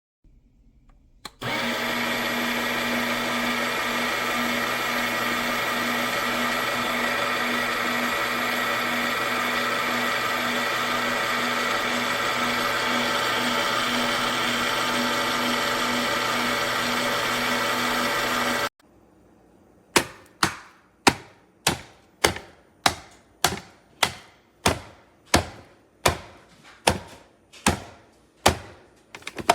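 Fellow Opus electric conical burr coffee grinder running steadily with a hum for about seventeen seconds, then cutting off. After a short pause comes a regular series of sharp knocks, a little under two a second.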